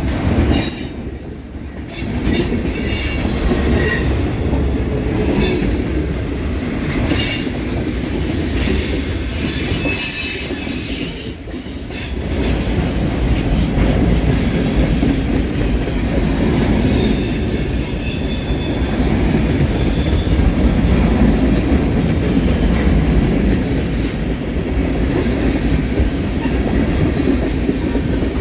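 Freight cars of a long train rolling past at close range: a steady rumble of wheels on rail, with high wheel squeals coming and going, most often in the first half.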